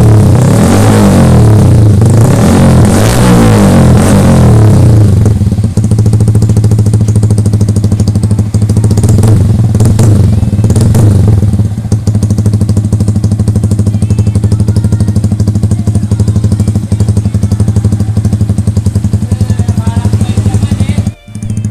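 Yamaha R15 V3's 155 cc single-cylinder four-stroke engine breathing through an SC Project full-system exhaust, revved up and down repeatedly for the first five seconds. It is blipped again about ten seconds in, then settles to a steady idle. The sound cuts out briefly just before the end.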